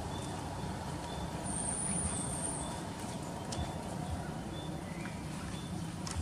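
Steady low rumble of a motor running, with a faint high chirp repeating about twice a second.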